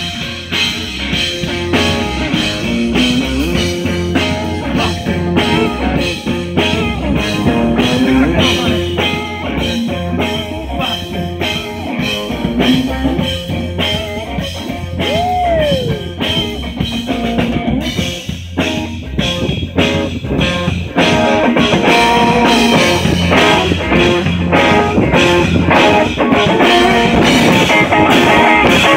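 Live rock band playing: electric guitar over a drum kit with a steady beat, growing louder about two-thirds of the way through.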